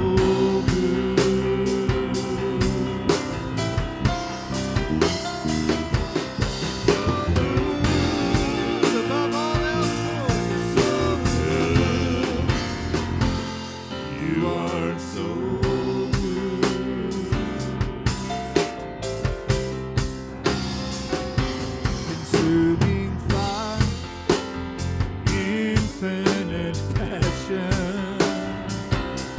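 Live worship band playing a song: a drum kit keeps a steady beat with snare and kick hits, under instruments and a bending melody line.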